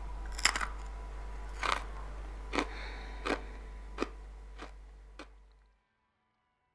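iPhone keyboard clicks as someone taps on the phone's screen: about seven short sharp clicks, half a second to a second apart and coming slightly faster, over a low room hum, fading out about five seconds in.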